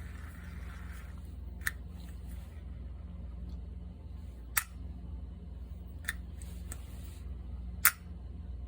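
Avet star drag fishing reel being handled, giving about five sharp, irregularly spaced clicks, the last one near the end the loudest, over a steady low hum.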